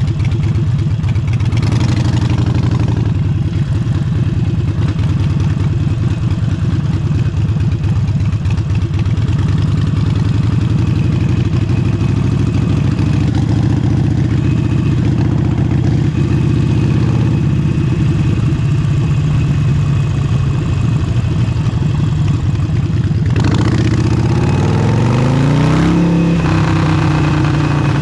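Harley-Davidson Forty-Eight's air-cooled V-twin with an aftermarket exhaust running under way at a steady pace, with wind noise on the microphone. Near the end the engine revs up with a rising pitch, then drops back as the rider shifts or rolls off.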